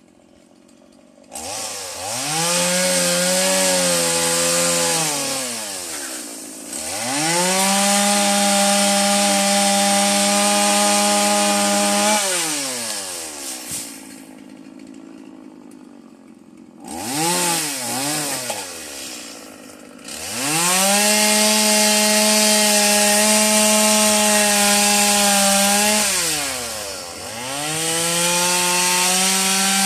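Stihl chainsaw brought up to full throttle several times, cutting wood, each time dropping back toward idle in between, with two quick revs partway through.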